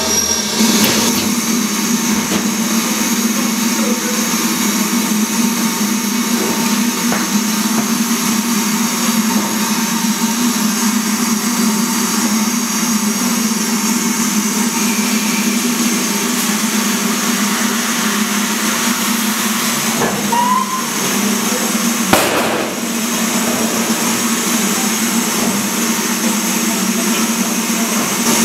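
BR Standard Class 4 4-6-0 steam locomotive standing with steam hissing from it: a steady hiss over a low, even hum. There is a single sharp knock about three-quarters of the way through.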